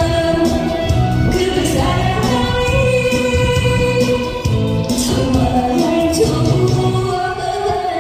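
A woman singing a Korean trot song into a microphone over backing music, with long held notes.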